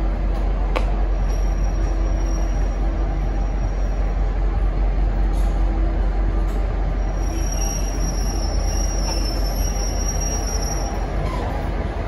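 V/Line passenger carriages at the platform with a steady low rumble and a thin, high wheel squeal. The squeal comes briefly about a second in, then again for several seconds from about seven seconds in.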